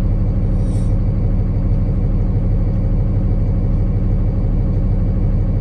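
Truck engine idling steadily: a constant low rumble while the truck stands stopped.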